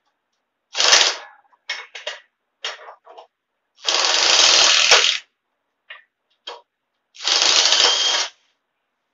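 Impact driver hammering in three short runs, the middle one the longest, with small clicks of tool and metal between: bolts being run out of a garden pulling tractor's frame during teardown.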